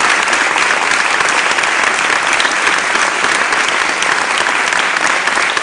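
An audience applauding: steady, dense hand-clapping from a roomful of people.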